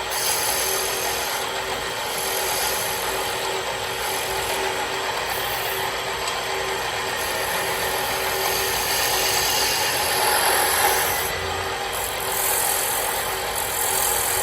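Wood lathe running, a steady motor hum under a continuous hiss of a turning tool working the spinning wood.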